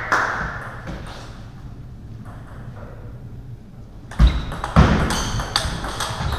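Table tennis ball clicking off the paddles and table in a large echoing hall: a strike just after the start that rings away, a lull, then a rally of sharp clicks about four seconds in, roughly two a second.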